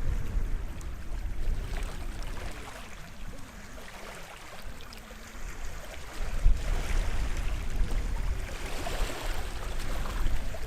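Small waves washing on the shore, with wind buffeting the microphone. It eases about three seconds in, then a wave comes in and hisses up the beach from about six and a half seconds on.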